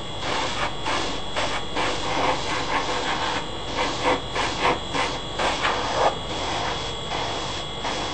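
Airbrush spraying primer in many short, irregular hissing bursts, over the steady running of its air compressor, which carries a thin high whine.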